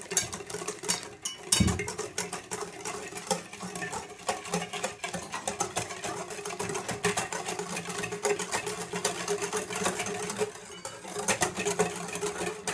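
Wire balloon whisk beating orange juice into a thin cake batter in a glass bowl: a fast, steady run of clicks and scrapes as the wires strike the bowl.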